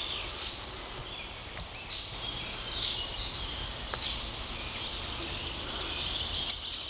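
Several songbirds singing in woodland, with many overlapping short high chirps and trills over a steady low background noise.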